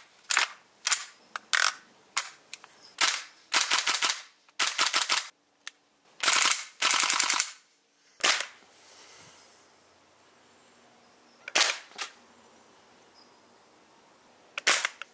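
Gas blowback airsoft rifle firing: sharp single shots, each with the crack of the bolt cycling, then several short rapid strings of shots about three to seven seconds in. After a pause come a few more single shots, two near the end.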